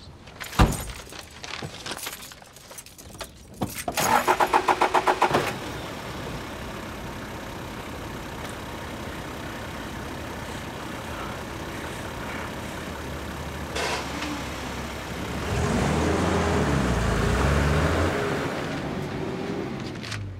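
A few clicks and knocks, then a car engine cranking on the starter with a rapid pulsing for about a second and a half before it catches. It settles into a steady idle and later revs up as the car pulls away.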